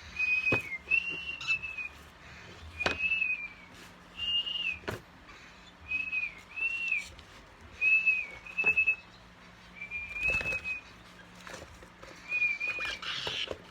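A pet parrot giving short whistled calls, about a dozen single notes that rise and fall, spaced a second or so apart, with a few sharp clicks in between.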